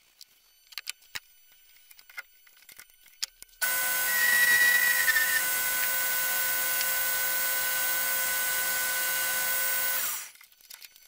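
A few light clicks of tools being handled. About a third of the way in, the vintage Coronet woodworking lathe is switched on and runs with a steady whine, with a brief higher squeal soon after it starts. It is switched off near the end.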